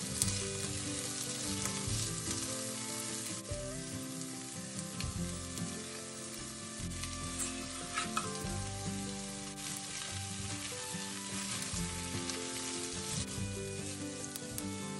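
Diced potato, carrot, bell pepper and onion sizzling steadily as they fry in an enamelled cast-iron pot, stirred with a silicone spatula. About halfway through there is a brief knock as the canned corned beef goes in, and quiet music plays underneath.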